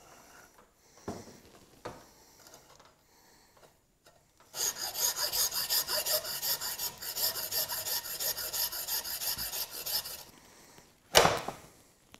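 Hacksaw cutting through a Minn Kota trolling motor shaft with quick, even back-and-forth strokes for about five seconds, after a few light knocks as the blade is set. A single loud knock comes near the end.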